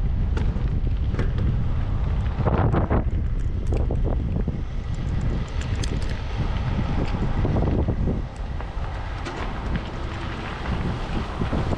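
Wind buffeting the camera microphone: a gusty low rumble.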